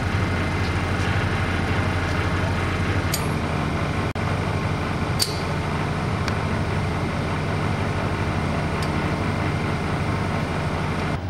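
Heavy machinery running with a steady low drone, with a few sharp metallic clinks, the clearest about five seconds in.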